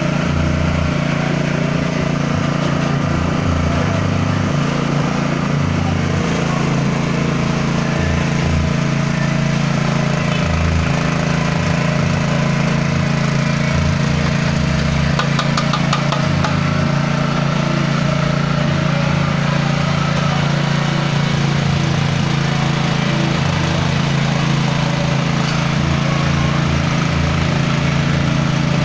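Motor-driven grinding machine for peanut sambal and getuk lindri running steadily with a constant low hum.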